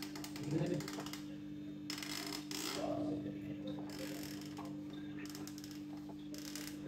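Temperature dial of a Westpoint electric roti maker being turned, clicking through its notches in several short runs, over a steady low hum.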